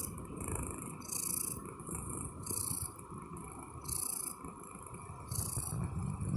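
Siberian cat snoring in its sleep: a breathy, hissing snore on each breath, coming regularly about every second and a half.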